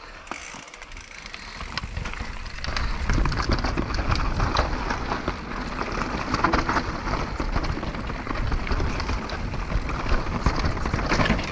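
Downhill mountain bike rolling fast over a rocky, stony trail: tyres crunching and rattling over loose stones and rock slabs, with the bike clattering over the bumps. Quieter at first, it gets louder after about two seconds.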